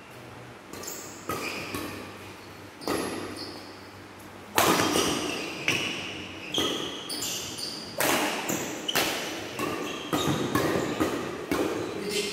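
Badminton doubles rally: rackets striking the shuttlecock with sharp, echoing hits, a few light ones at first, then louder and about one a second from about four and a half seconds in, with shoes squeaking on the court mat between shots.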